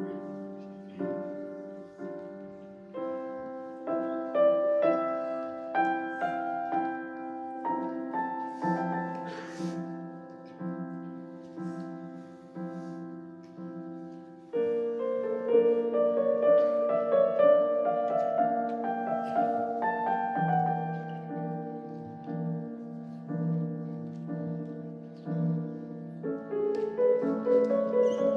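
Instrumental piano music with repeated chords, swelling distinctly louder about halfway through.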